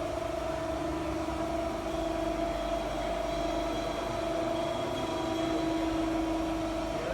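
Mantech HP32160 three-phase CNC folder running with a steady motor hum and whine at a constant pitch, wavering briefly in the middle.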